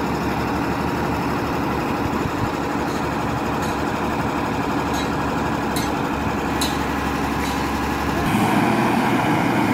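Heavy truck diesel engine running steadily, with a few faint clicks in the middle; the engine sound shifts and gets a little louder about eight seconds in.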